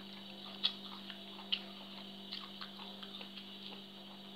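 Quiet eating sounds: soft, scattered wet clicks of a person chewing food and fingers picking at it, with two sharper clicks in the first second and a half, over a steady low electrical hum.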